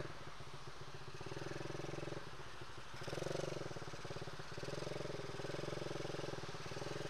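Small clutchless, single-gear ATV engine running as it is ridden, its revs rising and falling with the throttle, a little louder about three seconds in and again near the end.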